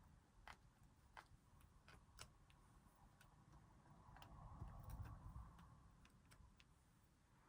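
Near silence with faint, irregularly spaced light clicks and a low background rumble.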